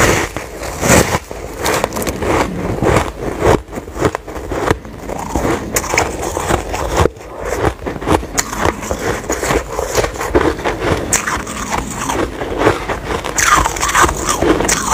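A block of white snow ice being bitten and chewed: a dense, irregular run of crunches. Louder bites come just after the start and again near the end.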